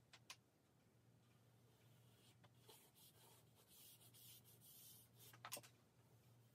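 Faint scratching and rubbing of charcoal being stroked across drawing paper, with a few soft clicks, one near the start and one about five and a half seconds in.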